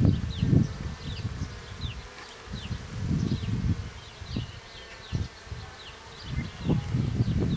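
Honeybees buzzing in a steady hum around an open hive during a frame inspection. Irregular low rumbling surges, likely handling or wind on the microphone, run through it, along with short high chirps in the background.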